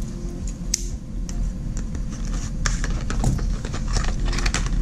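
Small paperboard box being opened and handled by hand: scattered light clicks, scrapes and rustles of the cardboard flaps.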